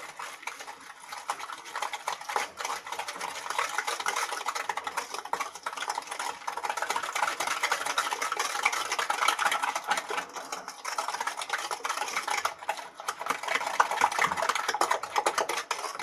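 Eggs and sugar being beaten by hand with a whisk in a glass bowl: a fast, continuous run of clicks and swishes as the whisk strikes the glass and churns the mixture.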